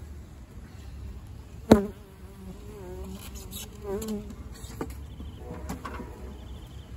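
Honeybees buzzing in flight close by, the hum wavering in pitch as they pass, with a single sharp knock about two seconds in.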